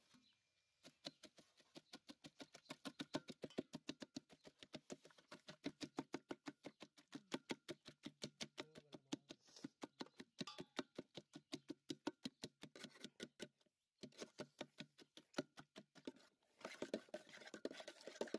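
Hand-held wire masher pounding soft fruit pulp in a large aluminium pot: a fast, even run of mashing strokes, about four or five a second, with a short break about three-quarters of the way through before they start again.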